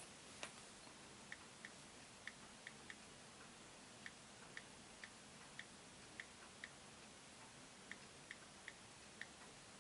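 iPhone 5s on-screen keyboard clicking as a password is typed: about fifteen short, high clicks at an uneven typing pace, with brief pauses between runs.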